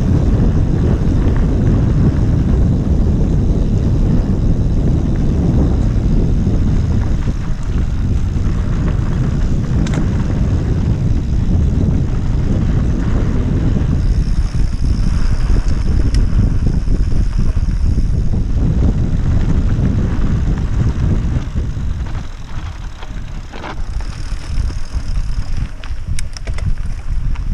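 Wind buffeting an action camera's microphone as a mountain bike rolls along a dirt singletrack, a steady low rumble of rushing air and tyre noise. A high steady buzz joins in twice, about halfway through and again near the end, and a few sharp rattles come near the end.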